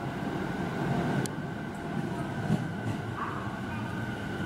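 JR 209-series electric train running slowly into the platform, with a steady rumble of wheels and motors and a couple of sharp clicks.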